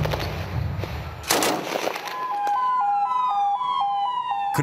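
Fire engine's two-tone siren, switching quickly back and forth between two pitches, starts about two seconds in, with a second siren gliding slowly down in pitch behind it. Before it there is rumbling noise and one sharp loud burst about a second in.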